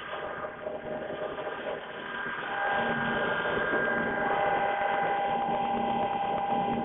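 CNC machine running, with a steady whine of several tones over a mechanical noise that grows louder about two and a half seconds in.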